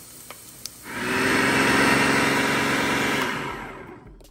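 Electric blender motor switched on about a second in, running steadily for a couple of seconds while blending a mixture, then switched off and winding down.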